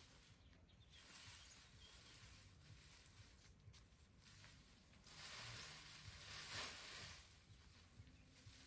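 Faint rustling of dry grass thatch being handled and laid on a small roof, louder for a couple of seconds past the middle.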